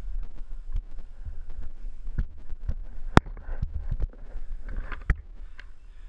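Mountain bike riding over a dirt singletrack, heard from a helmet camera: a steady low rumble of wind and trail buffeting with light rattling clicks, and two sharp knocks about three and five seconds in.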